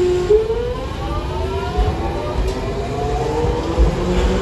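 Hiroden 'Green Liner' electric tram's traction motors whining as it pulls away, several tones rising slowly and smoothly in pitch as it gathers speed. Near the end a lower hum joins as a second tram comes in.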